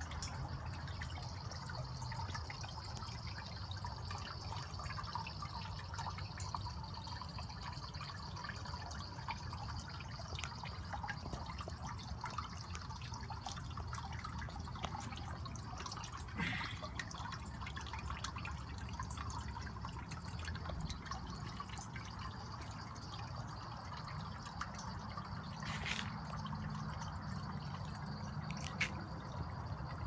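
Water from a pump-fed cascade fountain dripping and trickling from small copper pans down into a copper bowl: a steady patter of drops, with a few sharper ticks standing out.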